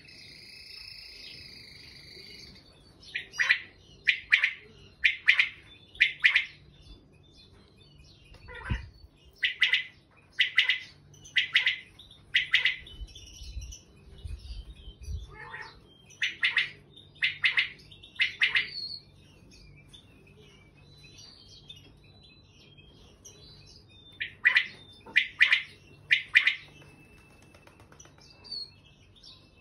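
Male common quail calling: sharp call phrases repeated about once a second in runs of three or four, with pauses of several seconds between runs.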